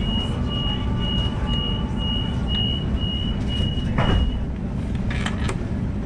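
Sydney suburban train's door-closing warning: a steady run of high beeps at one pitch, about two a second, over the low rumble of the carriage. The beeps stop about four seconds in, with a thump as they end.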